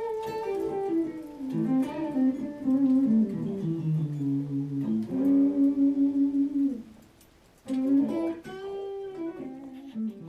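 Electric guitar playing a single-note melodic line, the notes stepping mostly downward, with one note picked rapidly over and over in the middle. The playing stops briefly about seven seconds in, then a few more notes follow.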